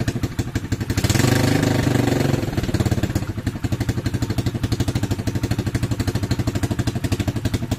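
Single-cylinder four-stroke 140 cc YX pit bike engine idling with a rapid, even firing beat. It is blipped briefly about a second in, then settles back to idle. The bike has just been started after standing over the winter and still needs running in.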